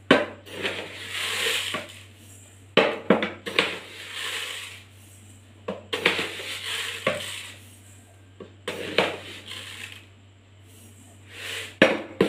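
Spoonfuls of sugar poured onto grated coconut in a steel kadhai, each with a soft hiss of grains, between several sharp clinks of a metal spoon against the pan and the sugar container.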